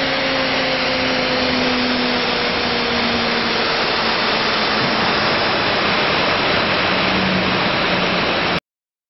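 CNC router running, a loud steady rushing noise of the spindle cutting, with faint tones that slowly fall in pitch; it cuts off suddenly near the end.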